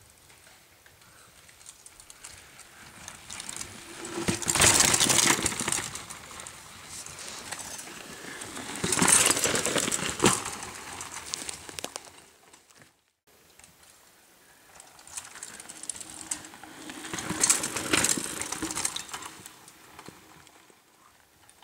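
Mountain bikes rushing past on a dirt forest trail, three times, each pass swelling up and fading away: the tyres rolling over the ground and the bike rattling.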